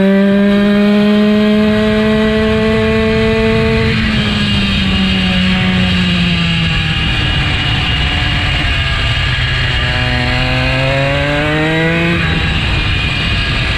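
Piaggio 79cc engine of a motorized bicycle running under way. Its note rises and holds high; about four seconds in the throttle eases and the pitch falls away, then it climbs again from about ten seconds.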